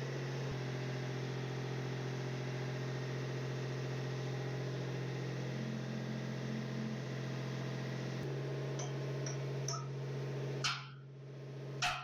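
Steady mechanical hum with a few light clicks near the end, then two sharp knocks about a second apart.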